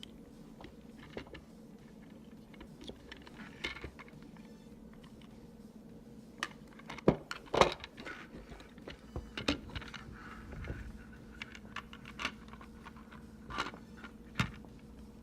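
Scattered light clicks and taps of a PlayStation 4 controller's plastic parts being handled while its ribbon cable is worked into the connector, the sharpest a few clicks about seven seconds in and one near the end.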